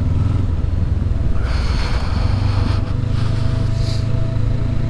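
2019 Honda CB500X's 471 cc parallel-twin engine running steadily at low revs. Its note rises a little about a second and a half in, and a brief rush of hiss lies over it for about a second.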